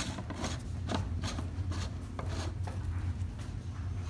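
A hand rubbing and twisting a plastic end cap on the end of a plastic pipe, making a series of short, irregular scrapes. A steady low hum runs underneath.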